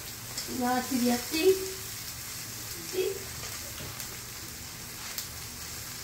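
Kimchi, pork and shrimp sizzling steadily on a hot wood-fired iron griddle plate, with a few light clicks of metal tongs and a spatula. A short voice sound comes about a second in.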